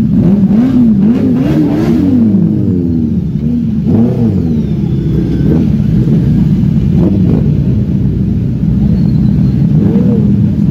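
Sport motorcycle engines idling together. One is revved in a quick run of throttle blips in the first two seconds, with single revs about four, seven and ten seconds in.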